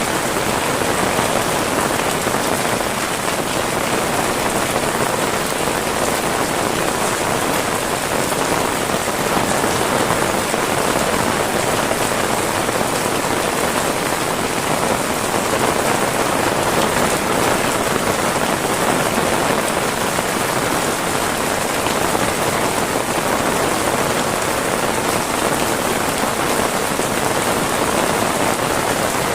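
Rain falling steadily, an even hiss of drops on surfaces with no breaks or single loud events.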